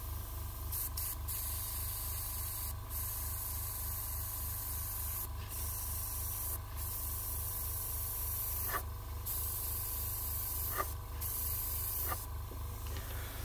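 Gravity-feed dual-action airbrush spraying paint, a steady air hiss broken by several brief pauses, over a low steady hum. It is laying freehand streaks over masked stripes.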